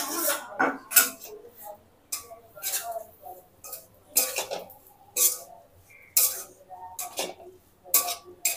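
Metal spatula scraping and clinking against a metal kadai (wok) while stirring dry grated coconut in ghee, about one stroke a second.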